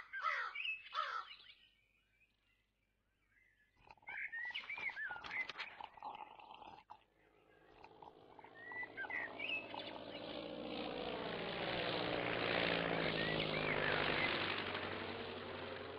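Small birds chirping in short bursts, with a quiet gap early on. From about eight seconds in, a rushing, whooshing noise swells and grows loudest near the end.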